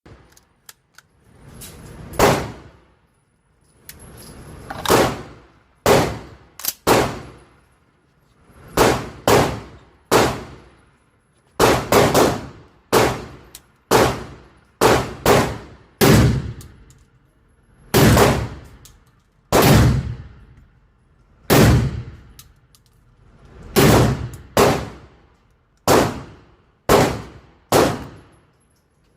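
Semi-automatic 12-gauge shotgun firing: about two dozen loud shots at irregular intervals, several in quick doubles and triples.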